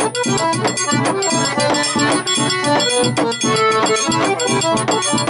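Accordion playing a quick run of notes in an instrumental break of a xaxado-style song, over a steady beat.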